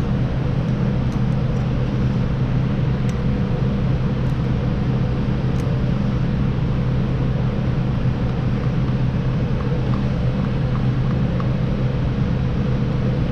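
Steady low machine hum that holds one pitch throughout, with a few faint small clicks of parts being handled.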